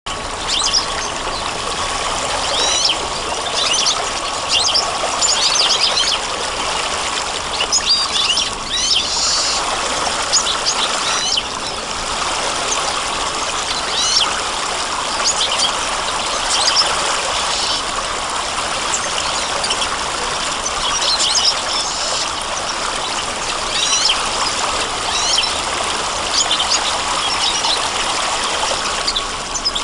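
Birds chirping and singing over the steady rush of running water, the short chirps coming every second or two above an even stream sound.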